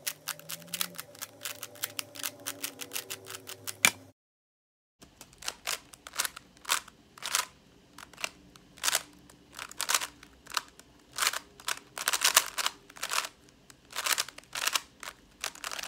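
Rapid clicking and clacking of a stickered YJ GuanLong 3x3 speed cube being turned fast by hand, several turns a second. About four seconds in the sound cuts to dead silence for about a second, then the turning clicks resume.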